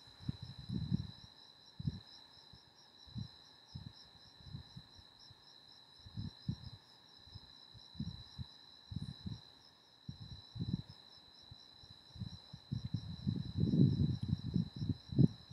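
A steady high-pitched trill with a fast pulse, continuing in the background, with scattered soft low thumps and rumbles that grow busier near the end.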